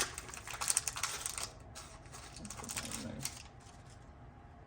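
Foil booster-pack wrapper crinkling and crackling as it is handled and torn open, busiest in the first second and a half with another burst a little after three seconds.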